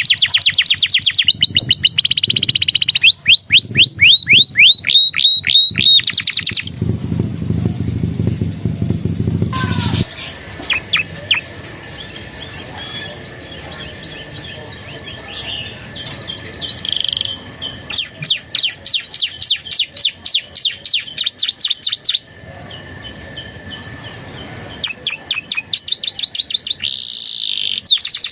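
Domestic canary singing phrases copied from ciblek and prenjak birds: fast runs of repeated high chirping notes, loud for the first several seconds, then softer trills, with loud rapid runs again later and near the end. A low rumbling noise sits under the song for a few seconds about seven seconds in.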